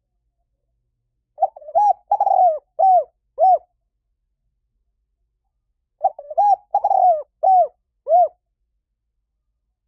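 Spotted dove cooing: two song phrases of a few quick coos each, the second about four and a half seconds after the first. It is a recorded call played as a lure to draw wild spotted doves in.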